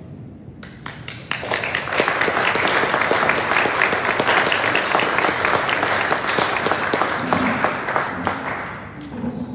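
Audience applauding: a few claps about a second in, quickly swelling into full applause that dies away near the end.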